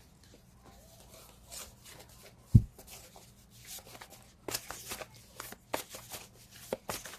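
Tarot cards being shuffled by hand: soft papery snaps and rustles that come thicker in the second half, with one sharp low thump about two and a half seconds in.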